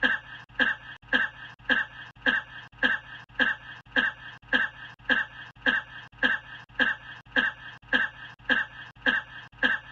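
One short human cough, looped and repeating at an even pace of a little under two coughs a second, each repeat the same.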